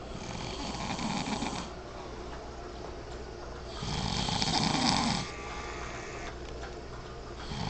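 A man snoring in his sleep: two snores about four seconds apart, each lasting about a second and a half.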